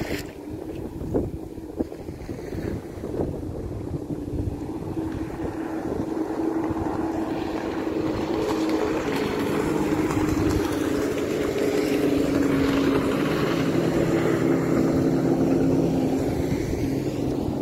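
Jet ski engine running at speed across the water, a steady hum that grows louder over the first ten seconds or so as the craft passes.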